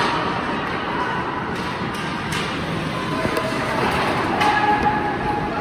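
Ice hockey game ambience in an indoor rink: a steady wash of crowd and play noise, with a few sharp knocks, three of them spread through.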